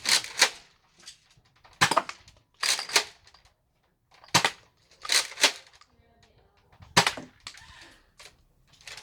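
Nerf Elite Surgefire pump-action dart blaster being pumped and fired repeatedly: about nine sharp plastic clacks, several in quick pairs, with short pauses between shots.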